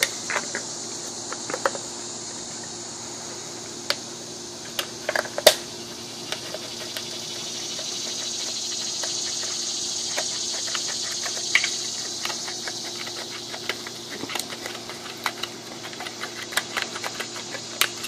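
Irregular sharp clicks and snaps of a hand cutting tool biting into and cutting around the ends of empty aluminium soda cans.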